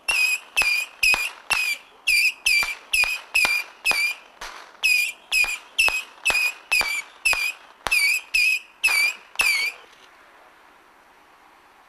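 Firework missiles fired in rapid succession from a 200-shot battery, about two a second, each a sharp launch pop followed by a short whistle. The volley stops about nine and a half seconds in, leaving faint hiss.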